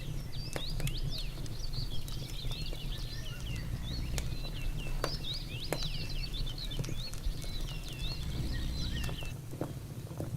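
Many small birds chirping and singing together in a busy overlapping chorus of short rising and falling chirps, which thins out near the end. A steady low rumble runs underneath.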